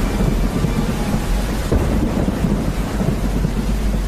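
Thunder rumbling over steady heavy rain.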